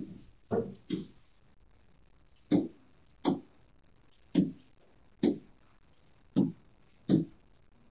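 Stylus pen knocking on the glass of a large TV screen as each handwritten stroke begins: about nine short taps, irregularly spaced roughly half a second to a second apart.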